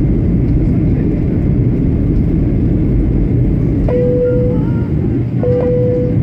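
Steady low roar of a Boeing 737's jet engines and rushing air, heard inside the passenger cabin during the descent to land. Two short steady tones sound about four and five and a half seconds in.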